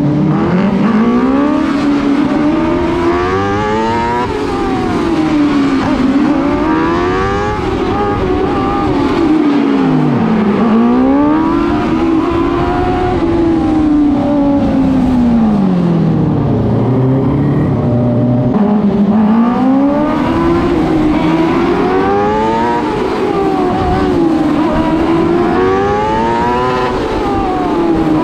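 TQ midget race car's engine heard from on board, revving up and easing off again and again, so its pitch climbs and falls every few seconds.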